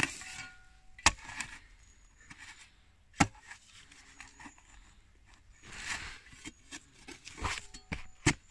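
Steel shovel blade chopping and scraping into dry, stony soil to cut through a tree root: three sharp strikes, the second about a second after the first and the third about two seconds later, then scraping and crunching of earth near the end.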